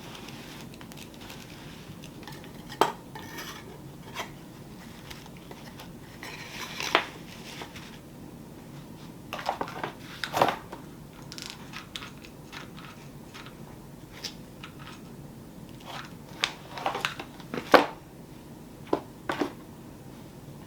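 Scattered light clicks, taps and clinks of small hard objects being handled and set down during a wreath repair, irregular and spaced a second or more apart, a few sharper than the rest.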